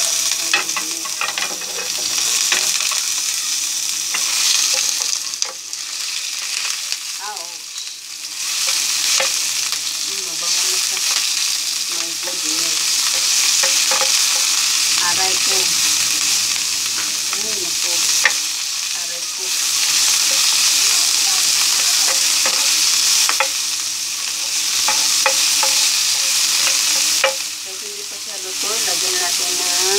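Ground pork and chopped onion sizzling in a hot nonstick frying pan, stirred and broken up with a wooden spoon that scrapes and taps the pan now and then. The sizzle briefly drops twice.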